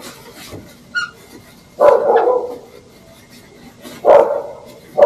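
A dog barking a few times, about two seconds apart.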